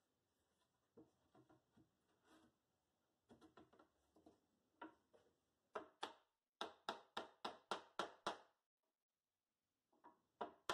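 Claw hammer striking a wooden block to drive a pine half-lap joint together: a run of sharp wooden knocks, settling into about four a second, then a pause and two more near the end. Lighter knocks come first as the pieces are set in place.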